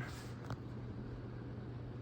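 48-inch Hampton Bay Tripoli ceiling fan running: a steady low motor hum under an even airy blade noise, with a single click about half a second in. This is the odd spinning sound the owner likens to a palm-leaf-blade fan, on a fan that also wobbles.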